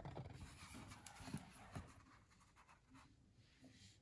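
Faint rustling and soft taps of a hardcover picture book being handled and its pages turned, mostly in the first two seconds.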